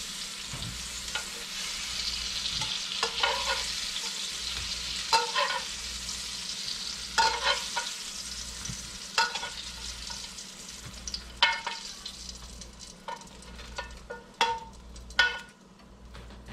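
Breaded chain pickerel pieces sizzling in a frying pan, with metal tongs clinking against the pan about a dozen times as pieces are turned and lifted out. The sizzle dies down toward the end.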